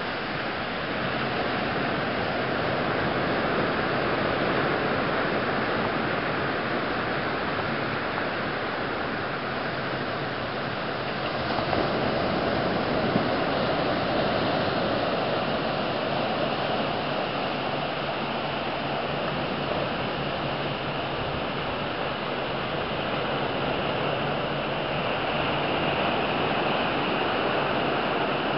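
Ocean surf washing onto a sandy beach, a steady rushing noise that swells slightly now and then.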